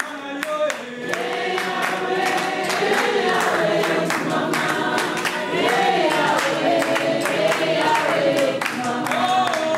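A group of voices singing together in held, sliding notes, with steady rhythmic hand-clapping keeping time.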